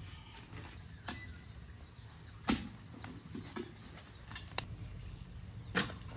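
A few sharp, separate knocks at uneven intervals, the loudest about two and a half seconds in, over faint bird chirping.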